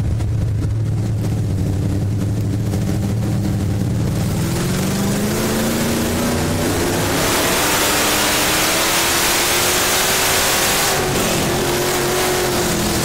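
Dirt-track stock car's engine heard from inside the cockpit, held at low revs for a few seconds, then rising in pitch from about four seconds in as it accelerates. It runs at high revs before easing back about eleven seconds in.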